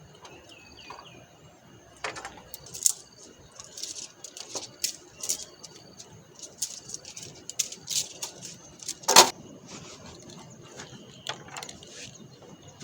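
Camping gear being handled: irregular small clicks, clinks and knocks, with one louder knock about nine seconds in. A bird chirps briefly in the first second.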